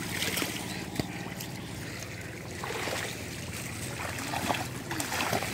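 Shallow muddy water sloshing and splashing as several people wade and grope through it by hand, over a steady low rumble.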